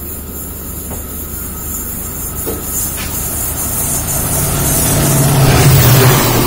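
Moving train's steady running rumble as an oncoming diesel locomotive on the next track approaches and passes close by. The locomotive's low engine drone swells up about four and a half seconds in, then comes the rush of its coaches going past.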